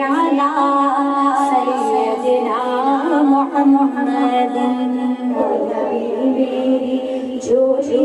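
Women's voices chanting a naat without accompaniment: a slow devotional melody with long held notes.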